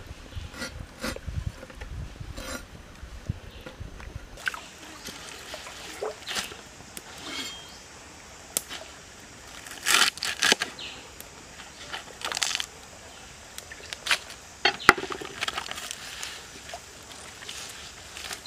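Cleaver chopping on a wooden board: a run of quick, regular chops through raw chicken offal for the first few seconds, then scattered louder, crisper cuts through a bundle of green onions.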